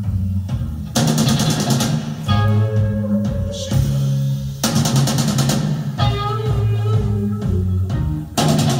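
Dance music with a heavy, sustained bass line, broken about every three and a half seconds by a burst of rapid, rattling drum hits.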